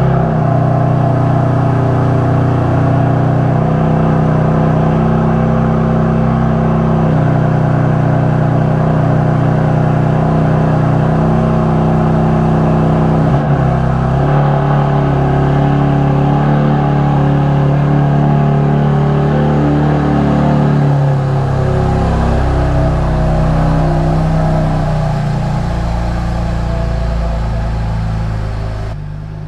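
Genie garage door opener's motor running steadily as it drives the door, with a shift in pitch about halfway through as the travel changes, then easing off near the end.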